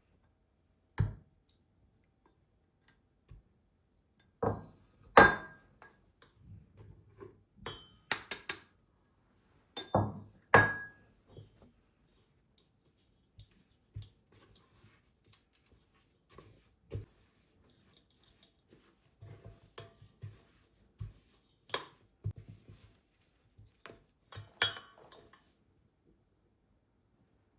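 Kitchenware being handled: scattered knocks and clinks of dishes and utensils being set down, the loudest a few seconds in and again about ten seconds in, two of them ringing briefly.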